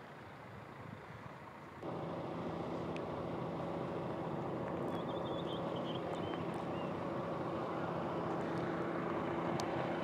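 A vehicle engine running steadily with a low hum. It gets louder about two seconds in and then holds level.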